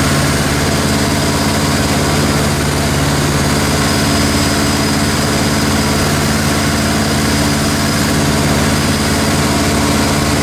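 Light aircraft's piston engine and propeller running steadily, heard from inside the cockpit, during the landing approach.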